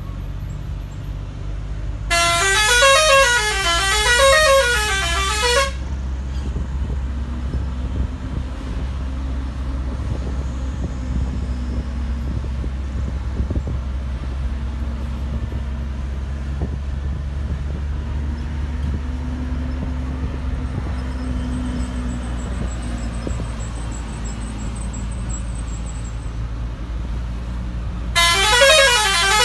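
Bus musical horn blowing twice, a loud warbling tone that swoops up and down about once a second, the first blast lasting about three and a half seconds, the second starting near the end. Between the blasts an engine runs steadily with a low drone.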